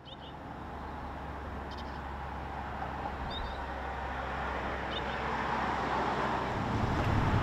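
Outdoor street ambience: a steady hum and wash of distant traffic that fades in at the start and slowly grows louder, with a few brief bird chirps scattered through it.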